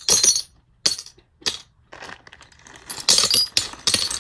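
Eyeglass lenses being knocked against each other: a series of sharp, irregular clicks and clinks, coming faster and closer together in the second half.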